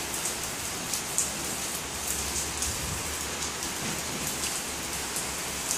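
Rain falling steadily, a dense even hiss with many small scattered drop ticks.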